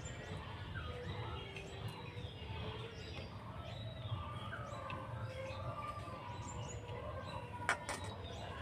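Small birds chirping in short rising and falling calls, over light splashes and clicks as washed flowers are lifted out of a steel bowl of water; one sharper click near the end.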